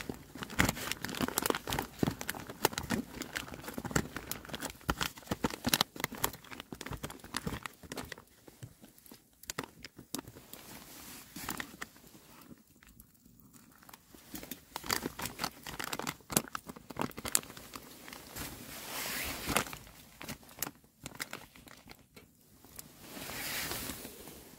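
Crinkling and rustling of a paper freeze-dried meal pouch being opened and handled, with many scattered clicks and crackles and a couple of longer rustles near the end.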